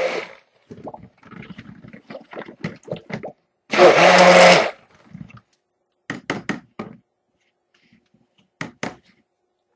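Stick blender running in soap batter in one short burst of about a second, about four seconds in. Around it come scattered clicks and knocks of a utensil tapping and scraping against a container.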